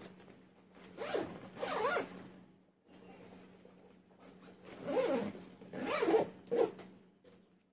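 Wrogn backpack's zipper being pulled along in two runs, one about a second in and another about five seconds in.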